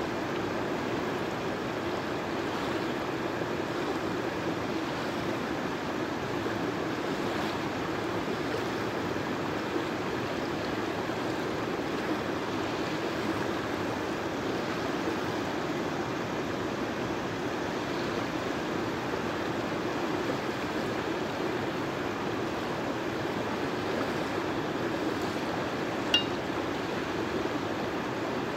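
River water rushing over rocks in shallow rapids: a steady wash of flowing water, with one sharp click near the end.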